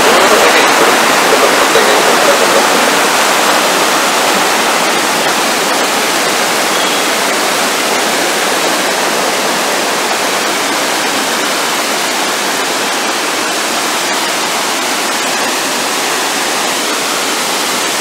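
Steady rush of a stream cascading over sloping rock slabs below a waterfall. It eases slightly over the first few seconds, then holds even.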